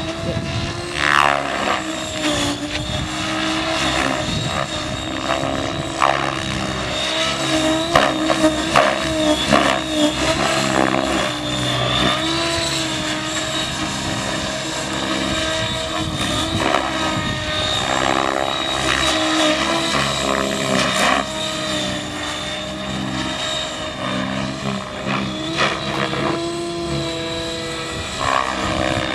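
Electric Trex 700 DFC radio-controlled helicopter in 3D aerobatic flight: motor and gear whine with rotor blade noise. The pitch bends up and down and the loudness swells and dips as it manoeuvres.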